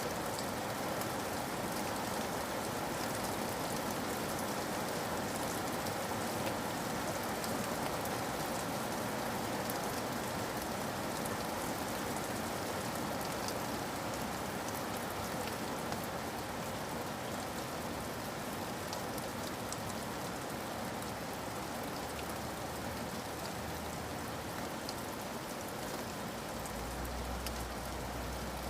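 Steady rain falling on forest foliage and ground, a dense even patter with individual drops ticking through it. A low rumble comes in near the end.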